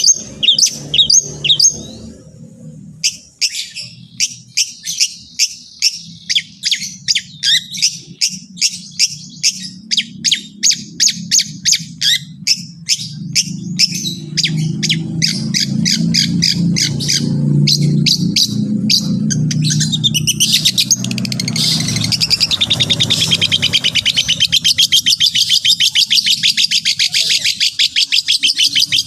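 Long-tailed shrike (cendet) singing: sharp, downward-sliding notes repeated about two or three a second, with a short break about two seconds in. About twenty seconds in, the song turns into a fast, continuous chattering trill.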